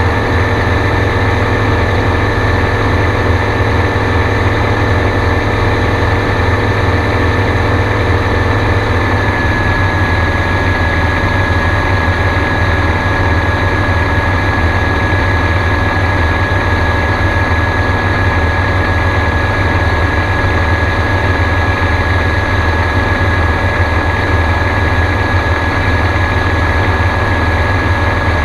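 Gyrocopter engine and propeller running steadily in flight, with a low rumble and a steady high whine; the tone shifts slightly about nine seconds in.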